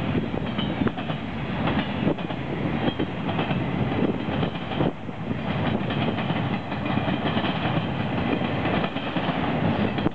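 CN freight train's cars rolling past at close range, a steady rumble of steel wheels on rail with repeated clacks as the wheels cross rail joints.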